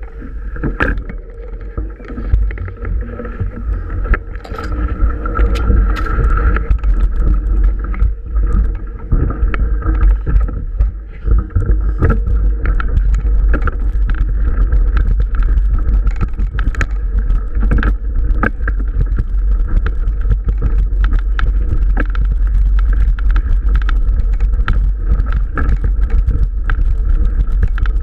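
Mountain bike riding over a rough dirt track, picked up by a camera mounted on the bike: a steady low rumble of wind and vibration with frequent rattles and knocks from the bike, growing louder about four seconds in.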